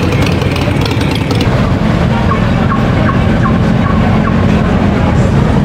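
Street traffic: cars and SUVs driving past at low speed, a steady rumble of engines and tyres, with a few faint short high chirps over it.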